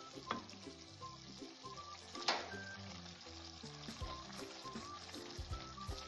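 Beef mince cooking in its liquid in a metal pan, sizzling lightly while chopped tomatoes are added and stirred in with a wooden spoon. One sharp knock comes about two seconds in, over soft background music.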